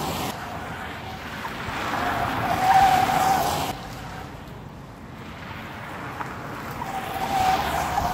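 Tyres of a Mercedes-Benz C 300 Cabriolet squealing on asphalt as the car corners hard around a parking lot, over the rush of the passing car. The squeal swells to its loudest about three seconds in, fades, and builds again near the end as the car comes back around.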